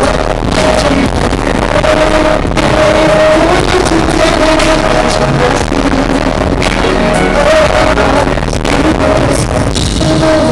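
Live pop concert music played loud over a sound system, a held sung or synth melody over drum hits.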